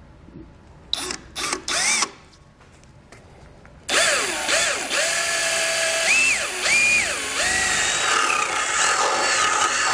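Power drill with a twist bit drilling a hole in metal: a few short spurts of the motor spinning up, then from about four seconds in a long steady run with its pitch dipping and rising as the bit bites.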